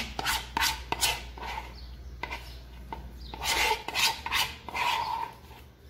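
Metal spoon scraping thick condensed milk out of a bowl: a series of short scraping strokes against the bowl, some with a brief ring.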